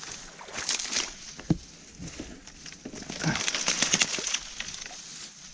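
Dry reed stems rustling and crackling as they are pushed through and brushed against, in bursts, with a couple of short dull knocks.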